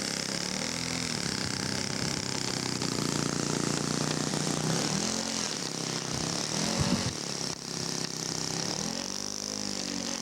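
Radio-controlled scale model airplane engine running on the ground, its pitch rising and falling repeatedly as the throttle is opened and closed in a run-up before takeoff.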